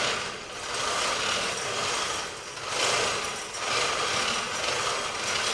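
Chain hoists on overhead gantry cranes rattling and ratcheting as they move a heavy suspended load, the clatter swelling and fading in uneven surges about once a second.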